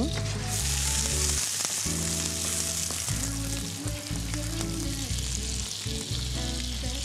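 Slices of bread frying in hot butter in a stainless frying pan, a dense sizzle. The sizzle jumps up sharply about half a second in, as a slice goes into the pan.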